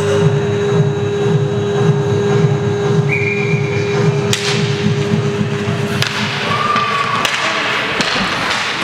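Music from the rink's sound system, a steady beat that stops about six seconds in. Sharp clacks of sticks and puck on the ice, with skates scraping, follow as play starts off the faceoff.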